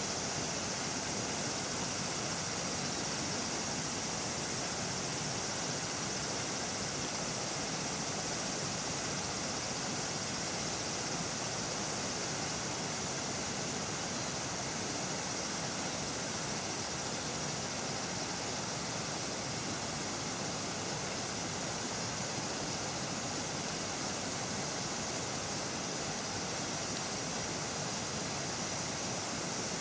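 Steady, even outdoor hiss with no distinct events; its highest layer fades out about halfway through.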